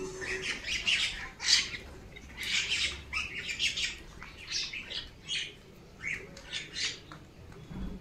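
Flock of mynas calling: a quick run of scratchy, noisy calls, one after another with short gaps, the loudest about one and a half seconds in.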